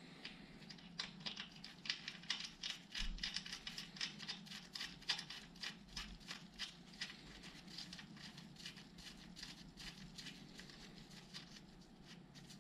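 Faint, rapid light clicks and crinkles of gloved fingers turning a pin lock thread insert by hand into a tapped hole in a motorcycle brake caliper, thinning out in the second half.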